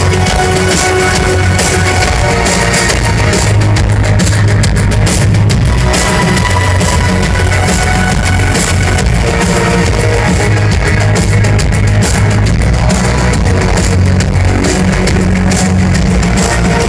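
An electro-industrial band playing loud live music, with a drum kit and heavy bass, heard from within the audience.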